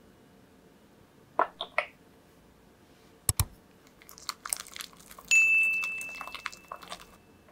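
Wire balloon whisk beating butter and egg in a glass mixing bowl, its wires clicking and scraping against the glass, with a couple of sharp knocks a little after three seconds. About five seconds in, one hard strike sets the bowl ringing with a clear tone that dies away over about two seconds.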